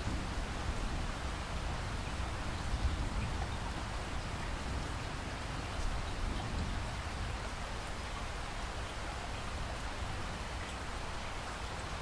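Steady rain falling, an even hiss of drops, with a low thunder rumble dying away over the first few seconds.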